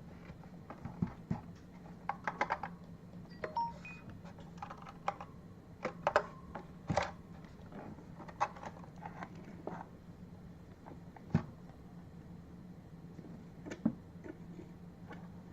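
Keys being typed on an Apple M0110 keyboard with Alps switches: irregular clacking keystrokes, some in quick runs and some single, with short pauses between them, over a low steady hum.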